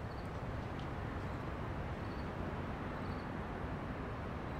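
Steady outdoor night background noise, a low even rumble with faint high insect chirps roughly once a second.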